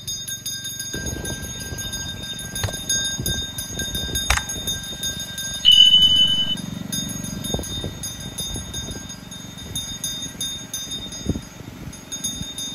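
A bell rings continuously in rapid strokes over the low noise of people walking in procession. About six seconds in, a loud, short, high-pitched tone sounds for under a second.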